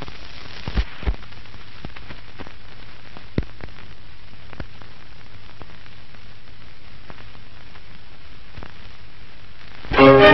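Steady hiss with a faint low hum and scattered clicks and pops: surface noise of an old film soundtrack. Music starts near the end.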